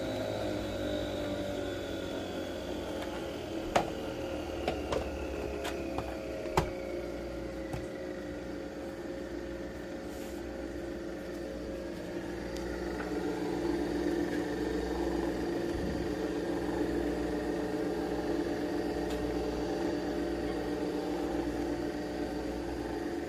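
Capsule coffee machine running as it brews espresso into a mug: a steady motor hum whose pitch falls slightly at first, then swells a little about halfway through. A few sharp clicks come between about four and seven seconds in.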